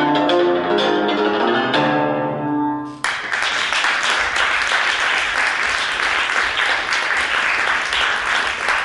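Cimbalom struck with mallets playing the last notes of a tune, the final notes left ringing. About three seconds in, audience applause breaks out and continues.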